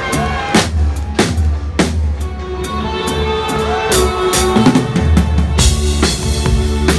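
New wave band playing live: a drum kit keeps a steady beat of kick and snare hits under sustained bass and keyboard chords.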